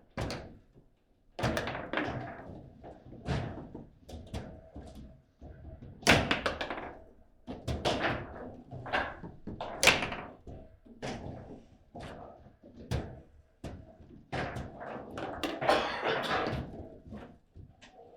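Foosball table in play: a rapid, irregular run of sharp knocks and bangs as the ball is struck by the rod players and hits the table walls, the loudest about six and ten seconds in.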